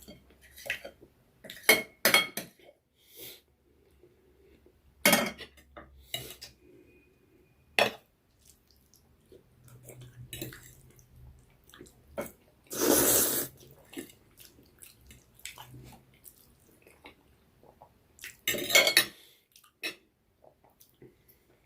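Eating utensils clinking and scraping against a plate or bowl in scattered short knocks, with one longer, louder noisy stretch lasting about a second, roughly two-thirds of the way through.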